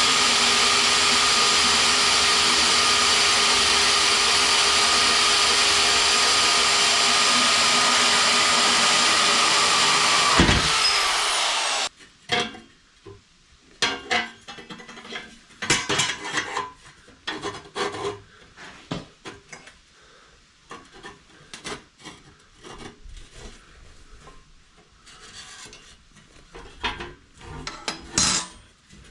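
An electric power tool runs loud and steady for about twelve seconds, then stops. Scattered clicks and scraping of metal being handled follow.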